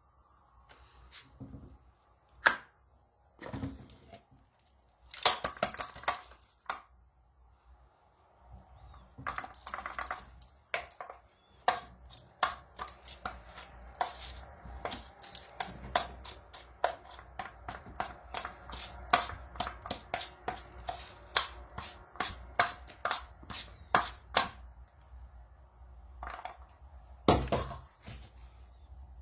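Light plastic clicks, taps and rattles from a cordless handheld vacuum being handled with its motor off. They come sparsely at first, then a few a second for much of the time.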